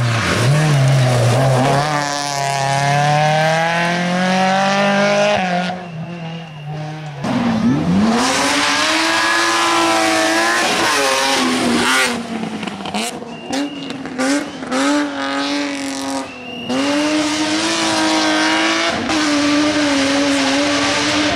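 Rally cars driven flat out, one after another, among them a Renault Clio and a BMW 3 Series Compact. Their engines rev high and drop back at each gear change and lift, with the note rising and falling repeatedly.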